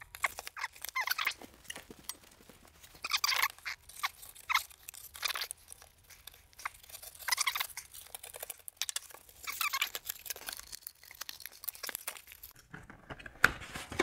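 A flat blade scraping and slicing along the glued seams of a sealed cardboard box, prying the flaps open: scratchy, crackling strokes in irregular bursts with short pauses and a few sharp clicks.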